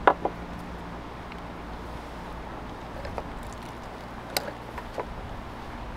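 Handling sounds as roasted quail are lifted from a wooden bowl and pressed into clay pots: a sharp double click right at the start, then a few light ticks and taps, over steady outdoor background noise.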